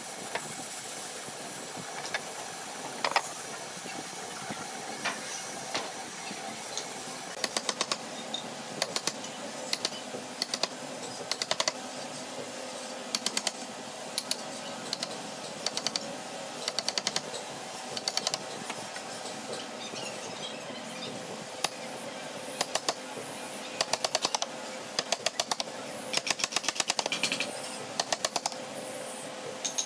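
A chisel is struck with a mallet in bursts of rapid, sharp taps as it cuts a mortise hole through a wooden chair seat. The tapping starts about seven seconds in and comes in repeated clusters over a steady background hum.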